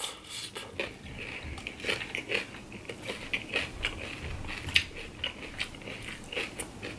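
A person chewing a mouthful of crunchy shredded raw salad, close to the microphone, with many short, irregular crunches.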